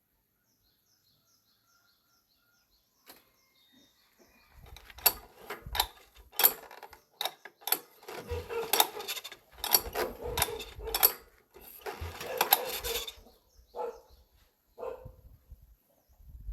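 Irregular sharp clicks and knocks of metal tools and small parts being handled during work on a tiller engine. They start a few seconds in and stop about two-thirds of the way through, with two short bursts near the end.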